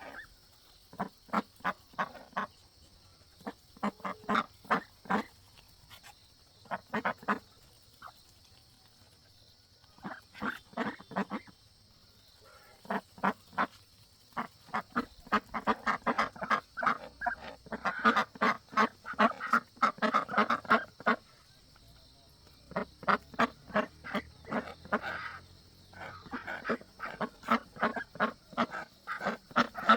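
Domestic ducks quacking in bouts of rapid, short repeated calls, broken by pauses of a second or more, with a steady faint high hiss underneath.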